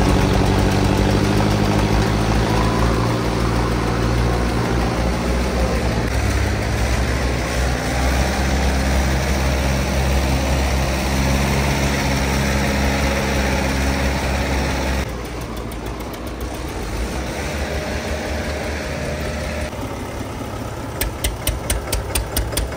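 Diesel tractor engine running steadily and loud, dropping to a lower, quieter note about fifteen seconds in; near the end it turns to a fast, even chugging.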